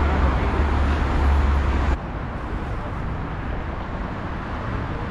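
Outdoor city street sound with road traffic noise. A low steady rumble under it stops abruptly about two seconds in, and the traffic sound then continues more quietly.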